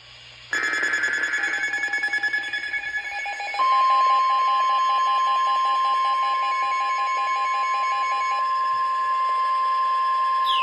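NOAA Weather Radio alert coming over a receiver. Rapid pulsing electronic tones start about half a second in. A few seconds later the steady single-pitch warning alarm tone comes on and holds, signalling that a new warning is about to be read.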